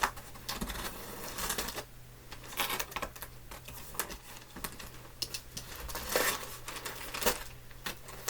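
Hands handling a cardboard shipping box and its packaging: irregular light clicks, taps and rustling, a few louder near the end.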